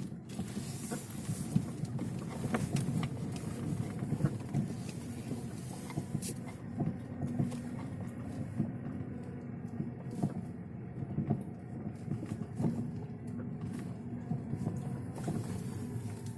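Lada Vesta's front suspension knocking irregularly over a rough road, sharp knocks over steady road and tyre noise. The dealer traced the knocks to a worn left anti-roll bar link and the anti-roll bar itself.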